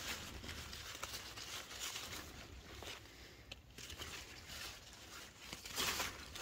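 Rustling and crinkling of winged-bean vines and leaves being handled while beans are picked, with small crackles throughout and a louder rustle about six seconds in.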